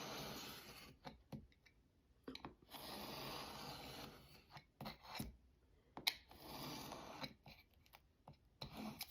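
Paper being trimmed by hand: three long rasping strokes across the paper, with light clicks and taps of handling between them.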